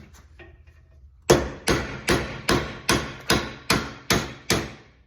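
Hammer blows on a punch driving the hinge pin out of a 1966 C10 door hinge held in a vise. Nine sharp, evenly paced metal strikes, about two and a half a second, begin about a second in, each with a short ring.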